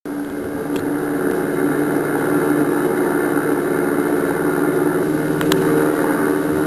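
A steady engine drone with a low hum and several held tones, growing a little louder over the first couple of seconds. A light click comes about a second in and another after about five seconds.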